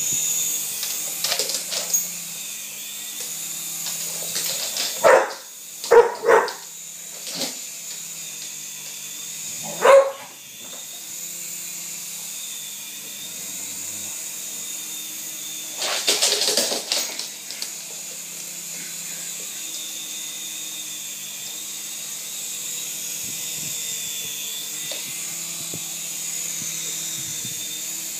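A dog barks in short sharp bursts, about four between five and seven and a half seconds in and one louder bark at ten seconds, with a rougher cluster around sixteen seconds. Under the barks a toy micro RC helicopter's small electric motor and rotor keep up a steady high whine.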